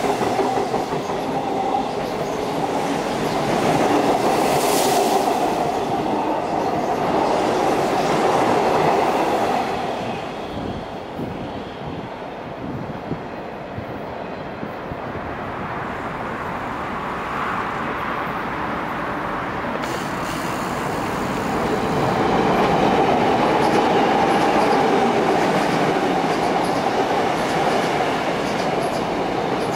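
Seoul Metro Line 2 electric trains running across a railway bridge. One passes during the first ten seconds, the sound drops for a lull of about ten seconds, and a second train comes past from about twenty seconds in.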